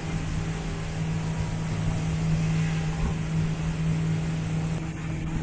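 Motorboat engine running under way, a steady low drone.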